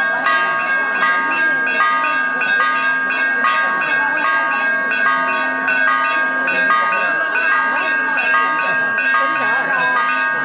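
Temple bells ringing rapidly without pause, about three strokes a second, with a crowd's voices underneath.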